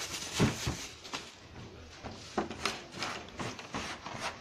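Handling noises on a work table: a string of light knocks and rubs, the loudest about half a second in.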